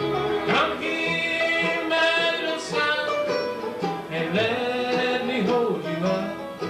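Bluegrass band playing the song, with banjo and guitar among the strings and sustained, sliding melody notes over them.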